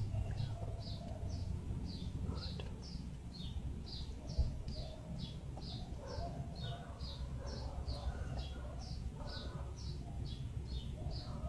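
A bird calling over and over: a short, high chirp that falls in pitch, repeated evenly about two to three times a second.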